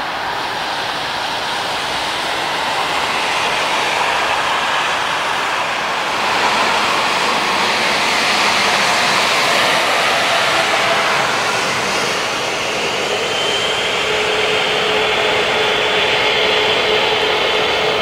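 Jet engine noise: first the rumble of an airliner climbing away, then a Korean Air Boeing 777's twin jet engines on the runway, with a steady whine that joins about two-thirds of the way in as the engines power up for the takeoff roll.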